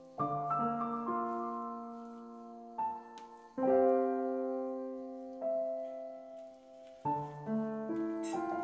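Slow, calm background piano music: a chord struck about every three and a half seconds, each left to ring and fade, with single notes in between.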